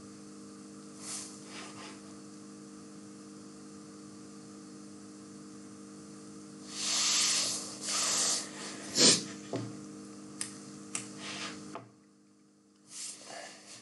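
Steady electrical hum and hiss from a desk microphone, with two loud breaths close to the mic about seven and eight seconds in. A sharp click and a few smaller clicks follow, and the hum cuts off suddenly near the end.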